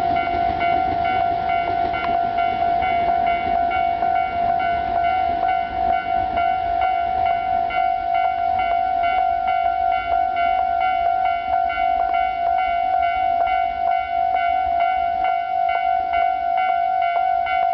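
Japanese railway level-crossing warning bell in its standard electronic tone, ringing steadily and evenly to warn that the crossing is closed. A passing train's rumble fades out in the first couple of seconds.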